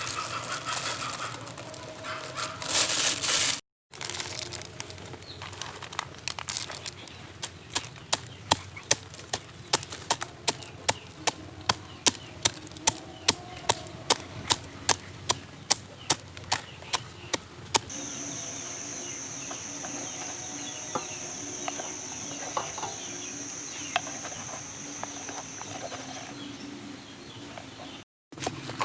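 A run of sharp, evenly spaced knocks, about two a second, lasting some twelve seconds, typical of food being pounded or chopped during preparation. After a cut, a faint steady high whine with low background murmur.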